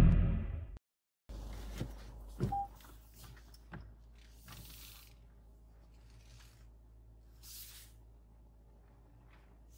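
Intro music fading out within the first second. It is followed by faint car-interior sound: a steady low hum with a few small clicks and knocks, the clearest about two and two and a half seconds in.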